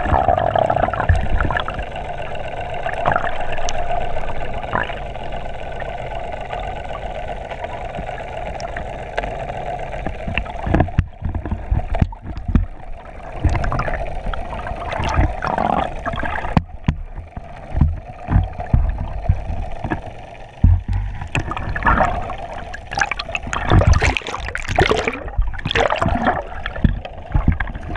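Water gurgling and sloshing around a camera held underwater beside a boat's hull. A steady hum runs through the first ten seconds or so, then the sound turns choppy, with many short knocks and splashes as the camera nears and breaks the surface.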